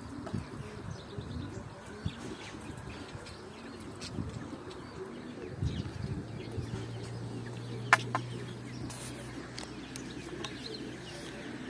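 Domestic pigeons cooing. A sharp click about eight seconds in, and a steady low hum from a little past halfway.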